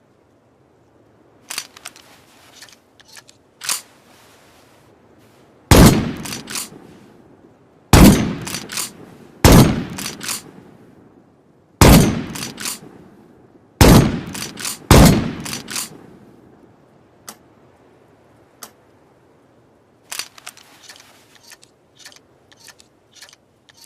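Pump-action shotgun firing six loud shots over about ten seconds, each followed by the quick clacks of the pump action being worked. Softer metallic clicks of the action come before the first shot and after the last.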